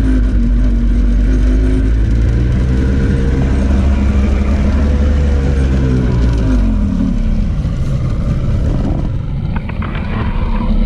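Flooded boat engine running after finally catching, revved up in neutral: its pitch climbs about two seconds in, holds, then falls back to a steady idle by about seven seconds. A few light clicks near the end.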